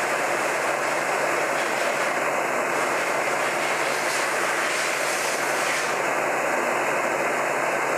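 Heat gun blowing steadily, a constant rushing hiss over a low motor hum, as it heats an AR-15 upper receiver to expand it so the barrel will slide in.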